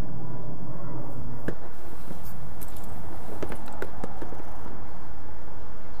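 A few light clicks and knocks as a motorcycle seat is handled and set back onto the bike, over a low steady hum that stops about a second and a half in.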